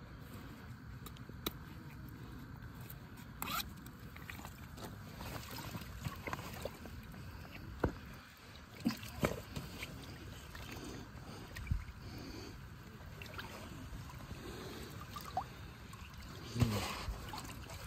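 Quiet water sloshing and scraping with a few small clicks and knocks, as a landed carp is slipped back into the lake.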